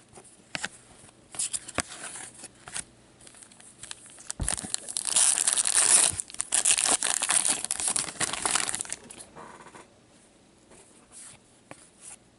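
A trading-card pack wrapper being torn open by hand, crinkling loudly for several seconds from about four and a half seconds in. A few light clicks come before it, and quieter handling of the cards follows.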